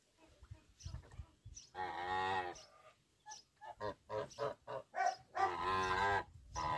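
Kholmogory goose honking: two long calls with a run of short, quick honks between them and another short honk near the end.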